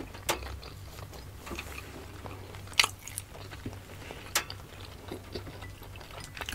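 Close-up chewing and mouth sounds of people eating steamed siomai dumplings, with a few short sharp clicks scattered through, two of them louder than the rest, about three and four and a half seconds in.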